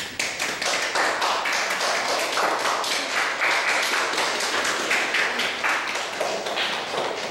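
A small audience clapping, many separate hand claps close together, easing off near the end.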